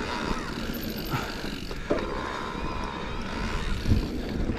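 Electric mountain bike rolling over a dirt forest trail, heard from the handlebars: steady tyre and wind rumble with short knocks from bumps, the strongest about four seconds in.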